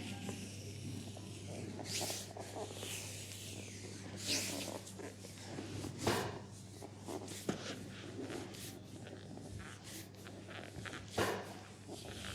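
Hands rubbing and stroking skin during a leg massage: irregular swishing strokes with a few short sharp taps, over a steady low hum.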